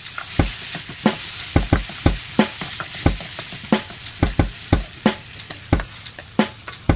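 Fried rice sizzling in a hot pan while being stir-fried, with repeated sharp knocks from the utensil striking the pan, about one to two a second.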